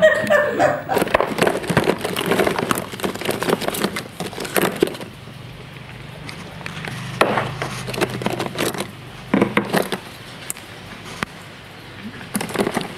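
Crackling, clicking and scraping of a paint tube being handled and squeezed, in irregular clusters of small sharp sounds.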